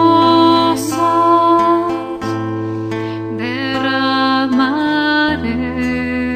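Devotional hymn sung by a choir over acoustic guitar: voices hold long notes over a bass that changes note about every two to three seconds.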